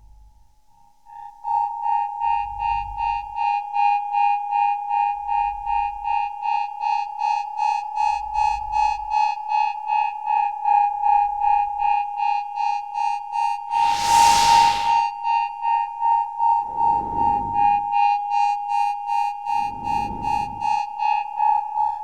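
Synthesized electronic tone pulsing about three times a second, with a soft low thud every few seconds. About two-thirds of the way in comes a loud burst of hiss, followed by two shorter swooshes.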